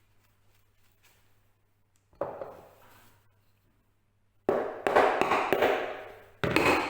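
Hammer tapping glue-dipped wooden dowels into the stripped hinge-screw holes of a door frame to drive them flush: one knock about two seconds in, then a quick run of blows a couple of seconds later and one more near the end.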